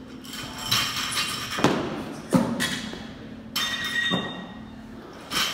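Barbells and weight plates clanking and thudding as plates are loaded onto the bars: about half a dozen separate knocks with a metallic ring, spread across a few seconds.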